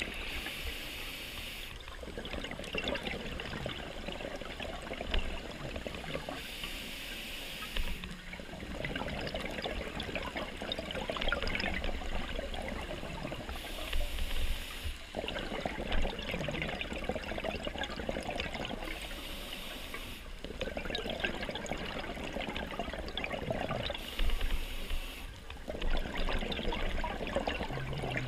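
A scuba diver breathing through an open-circuit regulator underwater. Each breath is a short hiss of inhalation followed by a few seconds of exhaled bubbles gurgling, repeating about every five to six seconds, five times over.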